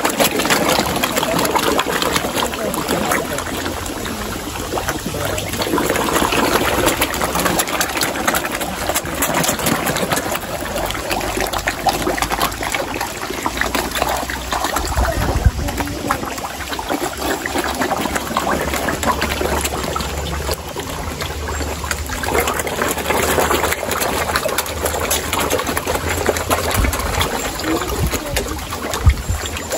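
A packed crowd of feeding carp splashing and churning at the pond surface, with a constant crackle of slurps and splashes as their open mouths gulp at the water for food.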